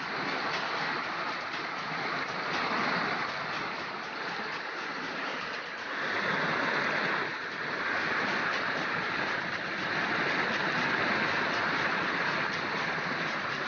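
Steady rushing of flowing water, swelling slightly about six seconds in.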